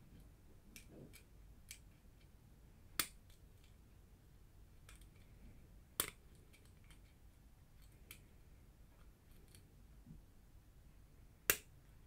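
Faint ticking and clicking of a steel hook pick and tension wrench working the pins inside a clear acrylic practice padlock, with three sharper clicks a few seconds apart, the last near the end.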